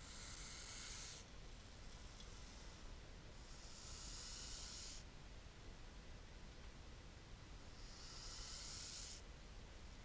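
Hognose snake hissing: three breathy hisses of about a second each, a few seconds apart. This is the defensive hiss of an agitated hognose.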